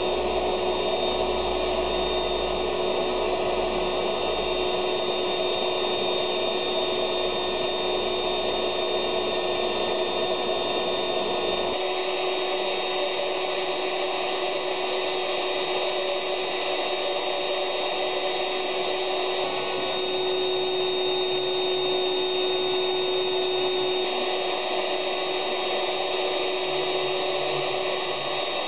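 Vacuum cleaner motor running steadily as a blower, pushing air through a hose into a plastic-film inflatable sculpture, with a constant whine; the low rumble under it drops away about twelve seconds in.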